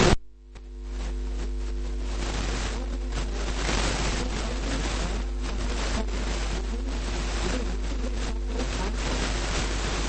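A voice cuts off abruptly at the start, leaving steady recording hiss with a low electrical hum and a few faint steady hum tones.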